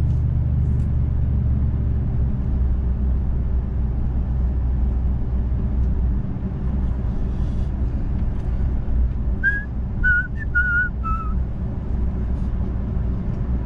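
A car driving steadily, its engine and road noise a constant low rumble. Near the end comes a short whistled phrase of four wavering notes, each a little lower than the one before.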